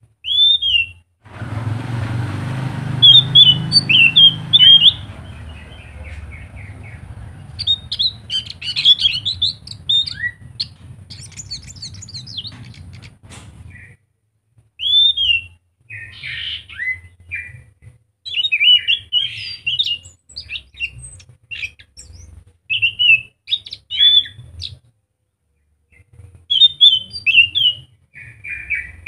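Caged anis macan thrush singing in short phrases of quick, varied chirping and whistled notes, with pauses between phrases. A low rumble sits under the song through the first half and then fades out.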